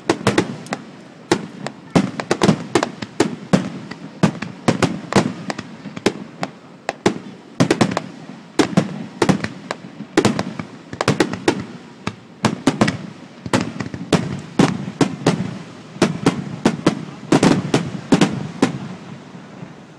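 Aerial firework shells bursting in rapid succession, a dense run of sharp bangs several a second that stops just before the end.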